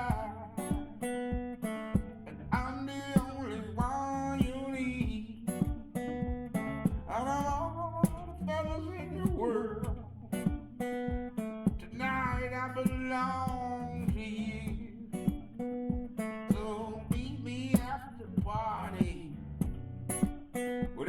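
A song's instrumental stretch: guitar with a steady beat and a lead melody line that slides in pitch.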